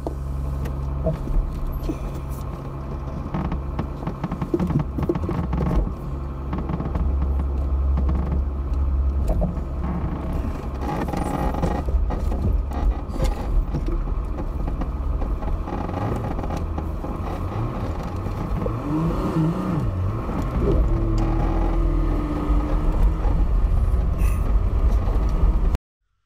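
Camper van driving slowly over a rough, rocky dirt track, heard from inside the cab: a steady low rumble with frequent knocks and clattering as the van jolts over the ruts.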